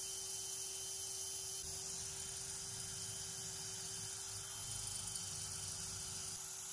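Cordless drill running steadily as its bit bores through a steel pipe-wrench part, a constant hum with a high hiss.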